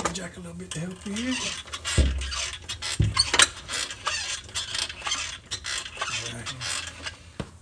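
Metal clunks, rattles and scraping as a Mazda RX-7's five-speed manual transmission is worked onto the back of the engine, with two heavy knocks about two and three seconds in.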